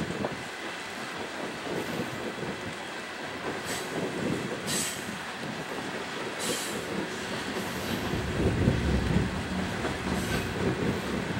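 Loaded coal hopper cars of a long freight train rolling past uphill, a steady rumble and clatter of steel wheels on the rails. Short high-pitched wheel squeals cut in a few times, and the rumble swells louder about eight seconds in.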